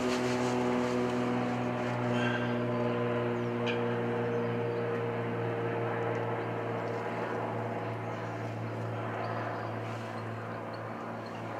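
Steady drone of a distant engine, its pitch falling slowly as it gradually fades.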